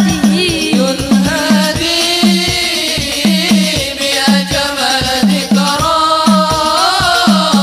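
Al Banjari sholawat: voices singing a devotional melody over hand-beaten frame drums (terbang) keeping a quick, steady rhythm. The drums' deep strokes drop in pitch.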